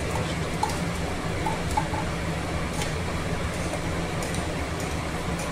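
Steady hum and hiss, with a few faint clicks and scrapes of a spoon against a steel tumbler as ginger-garlic paste is scooped out into a pressure cooker.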